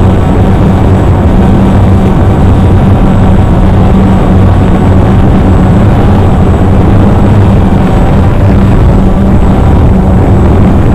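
Multirotor drone's motors and propellers buzzing loudly and steadily while it hovers, a low hum with an overtone over a rushing noise, picked up by a camera mounted on the drone itself.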